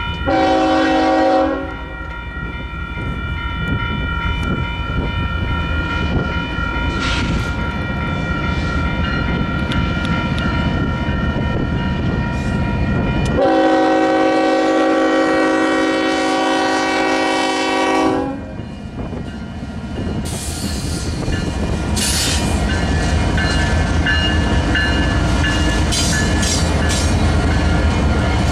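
Freight train of diesel locomotives passing, the lead locomotive's air horn sounding a short blast at the start and a longer, louder blast about halfway through, over the steady rumble of the engines and wheels with clicks of wheels on rail joints later on.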